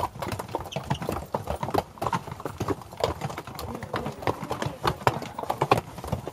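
Hooves of a string of pack mules clip-clopping on a rocky dirt trail at close range, the strikes coming irregularly and overlapping as the animals walk past one after another.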